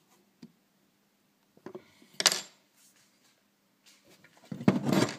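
Small engine parts handled on a wooden workbench: a light click, a short scrape-like clatter about two seconds in, and a louder run of knocks and rattling near the end as the parts are set down.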